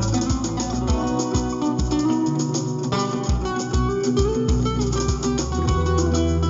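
Ibanez acoustic guitar played fingerstyle, improvising a flamenco-style melody on the A natural minor scale in quick plucked notes. Underneath run a steady low pulse and, from about two seconds in, long held bass notes.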